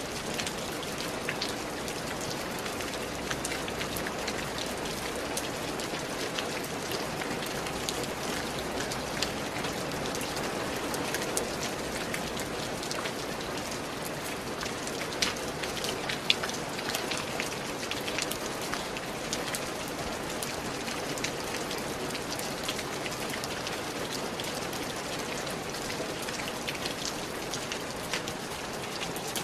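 Steady rain falling and pattering on a surface, a dense hiss of drops with individual drips ticking through it and a couple of sharper drops in the middle.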